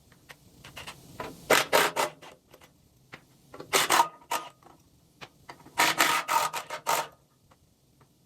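Three short bouts of rough scraping and clattering, with scattered clicks between them.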